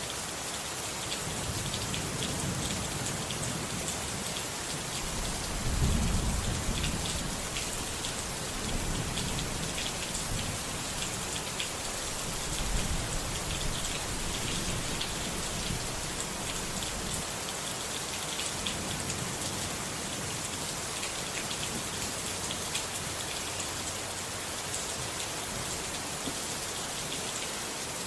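Steady rain pattering on a surface, with low rolls of distant thunder. The thunder swells loudest about six seconds in and again about twelve seconds in.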